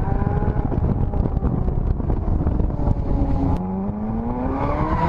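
Car engine running at speed over a heavy low rumble. Its note eases slightly, breaks off about three and a half seconds in, then climbs steadily as the car accelerates again.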